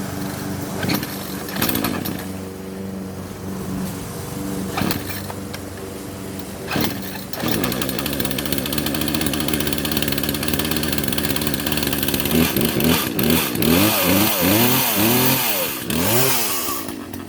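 New chainsaw engine running at a steady low idle with a few knocks, stepping up to a higher speed about halfway through, then revved up and down repeatedly near the end.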